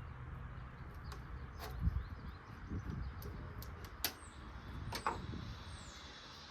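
A few sharp clicks and knocks of hand work on a car's fuel system, over a low steady rumble. A bird gives three short falling chirps in the second half.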